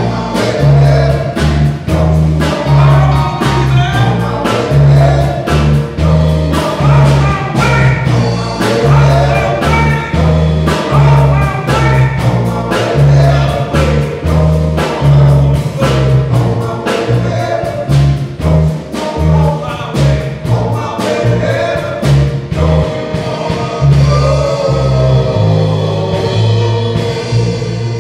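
Men's gospel vocal group singing together with a band: a prominent bass line changing note every second or so under steady drum beats.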